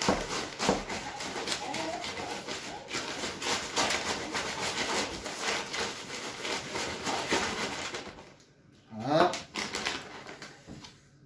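Clear plastic bags crinkling and rustling as they are opened and worked by hand, with many small rattling clicks of hemp seed and micro-pellets inside. The noise dies down about eight seconds in, and a short rising whine-like vocal sound follows.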